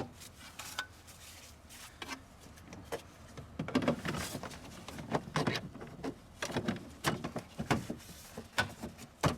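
Irregular clicks, knocks and scrapes of car parts being handled and fitted back into place in an engine bay, with a cluster of louder knocks in the middle and second half.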